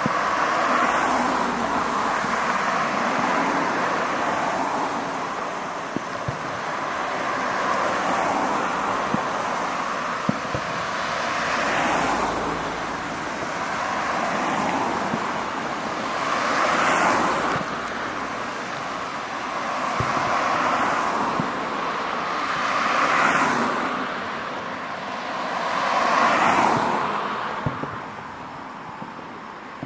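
Aerial firework shells bursting: repeated booms, each swelling and fading over a second or two, with sharp cracks in between. The sound dies down near the end.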